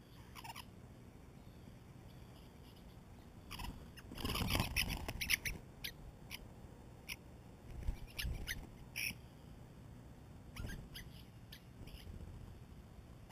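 European starlings at a ground feeder giving short, squeaky, clicking calls, thickest about four to five seconds in, then single notes every second or so, with a few soft thumps mixed in.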